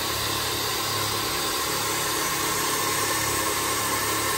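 Air-suspension bags on a lifted Ford F-450 dumping air with a steady loud hiss as the truck lowers, the engine idling underneath with a low hum.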